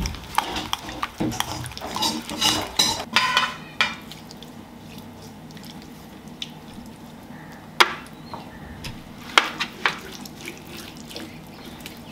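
A metal spoon clinking and scraping against a glass bowl as a spice marinade is stirred, a quick run of clicks for the first few seconds. Then quieter hand-rubbing of the marinade over a raw whole duck on a stainless steel tray, with a few sharp knocks.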